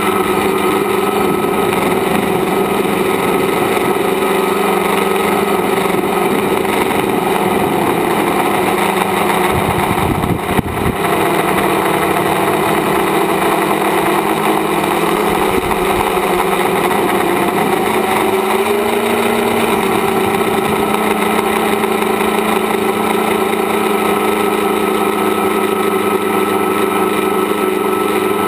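Tricopter's electric motors and propellers whining steadily, heard from the onboard camera, with rushing air noise. The pitch steps up about two-thirds of the way through as the throttle is raised.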